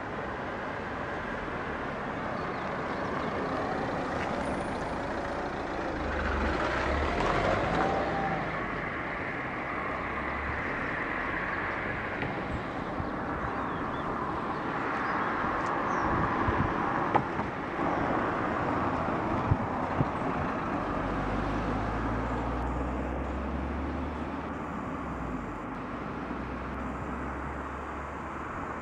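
Road traffic: a continuous rush of vehicles, swelling and fading as they pass, with a deep rumble at times and two sharp clicks a little past the middle.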